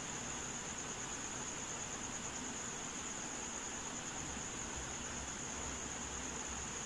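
Steady room-noise hiss with a constant high-pitched whine running through it.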